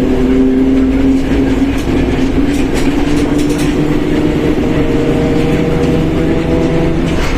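Mercedes-Benz OF1721 BlueTec 5 bus under way, its differential whining with several steady tones that drift slightly in pitch over the low rumble of the diesel engine.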